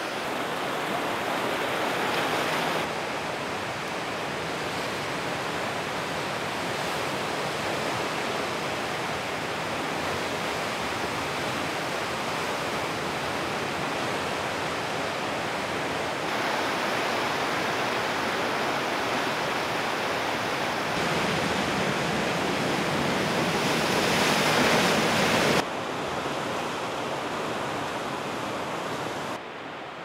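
Ocean surf washing against a rocky, pebbly shore: a steady rushing noise with no distinct breaks, whose level changes abruptly several times.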